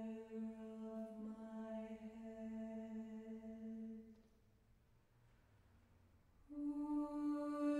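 Orthodox church choir singing a cappella, holding a long sustained chord that ends about four seconds in. After a pause of about two seconds, the choir comes back in on a new, higher held chord.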